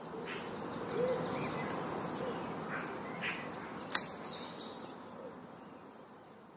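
Wild birds chirping and calling over a steady rushing background, with a few short low arched calls in the first couple of seconds and one sharp click about four seconds in; the whole fades slowly toward the end.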